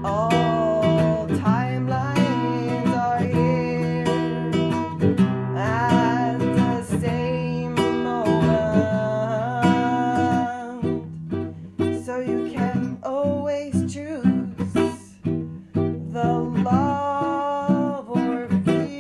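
Background music: a strummed acoustic guitar with a gliding melody line above it.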